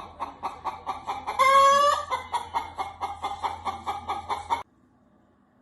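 Chicken clucking rapidly, about five clucks a second, with one louder drawn-out call about a second and a half in. The sound cuts off suddenly near the end.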